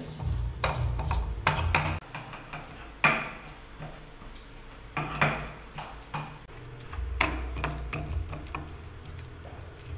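Stone pestle grinding a moist spice paste in a stone mortar (Javanese cobek and ulekan), with scraping strokes and irregular sharp knocks of stone on stone.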